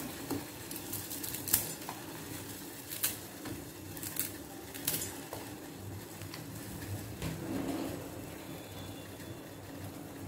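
Water boiling in a stainless steel pot on a gas burner, a steady bubbling hiss, with a few sharp light clicks in the first five seconds as crushed dry noodles are dropped into the pot.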